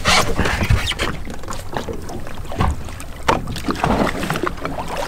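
Sea water splashing and lapping at the side of a small boat as a hogfish is held in the water and moved to revive it, in a run of irregular splashes.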